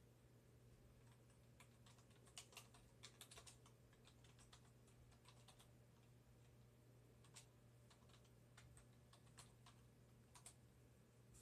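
Faint typing on a computer keyboard: irregular runs of keystroke clicks, busiest about two to three and a half seconds in, then sparser.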